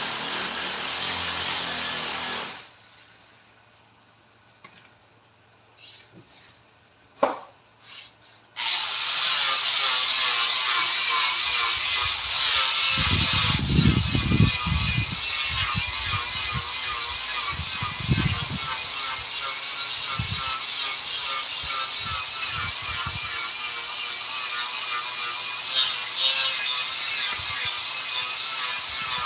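Handheld power tool working wood, its motor pitch wavering under load. It stops about two and a half seconds in, a few knocks follow, and it starts up again about eight and a half seconds in and keeps running.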